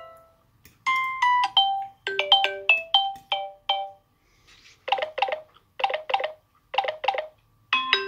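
Samsung Galaxy A3 (2017) speaker playing ringtone previews as they are selected: a short bright melody of bell-like notes, then after a brief pause a different tune in three quick bursts of notes, and a third ringtone beginning near the end.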